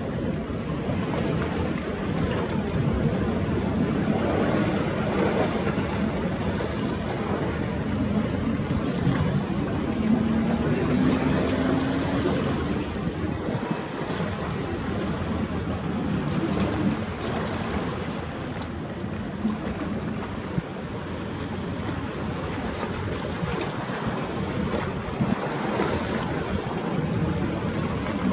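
Sea waves washing in, with wind blowing across the microphone, a steady rushing noise.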